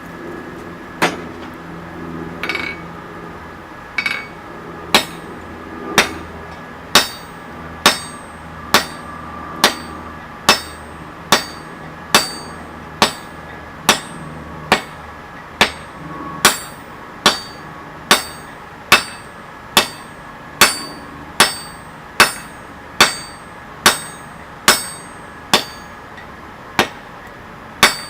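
Hammer blows on hot mild steel bar on an anvil, each with a short metallic ring. A few spaced blows at first, then a steady beat of about one blow a second.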